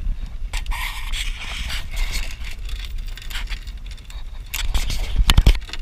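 Wet cast net rustling and scraping against the boat's side as a stingray is worked free of the mesh, with a few louder knocks about five seconds in.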